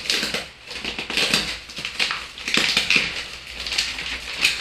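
Parcel wrapping being torn and crumpled open by hand: a run of irregular crackling rustles and rips.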